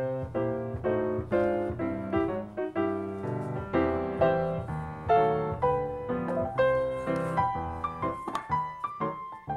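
Background piano music: a steady flow of gentle single notes and chords.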